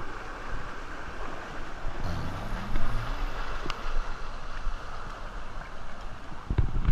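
Steady rush and lapping of lazy-river water flowing around an inflatable ring tube.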